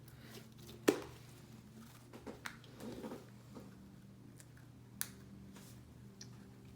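Homemade glue slime being handled and squished, a few soft wet sounds with sharp taps or clicks, the loudest about a second in and another about five seconds in, over a steady low hum.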